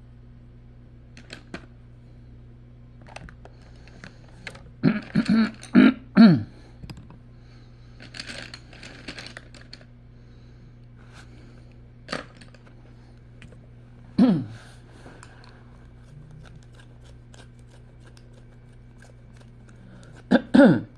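A person burping: a loud run of burps about five to six and a half seconds in, another around fourteen seconds and one just before the end, each a short pitched sound sliding down in pitch. Light clicks and taps fall in between, over a steady low hum.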